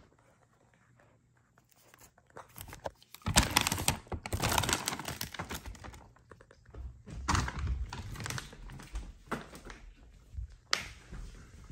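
Puppy moving about on a hardwood floor and a treadmill deck: irregular bursts of scratching and rustling with scattered clicks, and one sharp click near the end.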